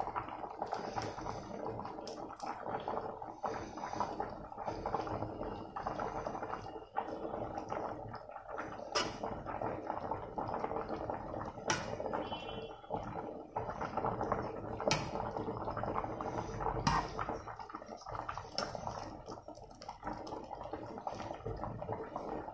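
Pot of rice boiling in its cooking water, a steady bubbling, with a few sharp clinks of a metal skimmer ladle against the pots as the parboiled rice, about 70% cooked, is lifted out and drained.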